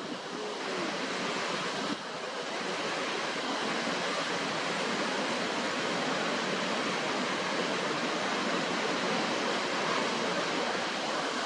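Steady rushing water of a waterfall, an even noise without any pitch, dipping slightly about two seconds in and then running a little louder.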